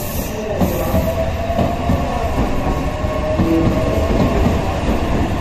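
Meitetsu 2000 series μSKY electric train rolling slowly past the platform: steady rumble of the cars with wheels clacking over the rail joints.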